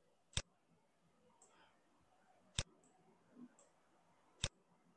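Computer mouse button clicking three times, about two seconds apart.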